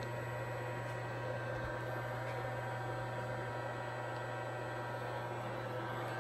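Steady electrical hum with faint, even higher tones above it, from the Fanuc robot cell while the arm jogs slowly; no separate motor sound rises or falls with the arm's movement.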